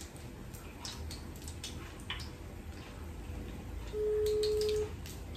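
Battered shrimp frying in hot oil on a gas stove, crackling with scattered small pops. About four seconds in, a phone's ringback tone sounds once through the handset: a steady mid-pitched beep of about a second, the line ringing while the call waits to be answered.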